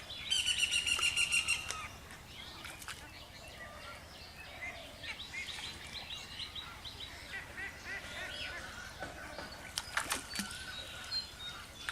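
Birds calling outdoors. A loud, rapid run of high repeated notes opens, followed by many short scattered chirps, with a few sharp clicks near the end.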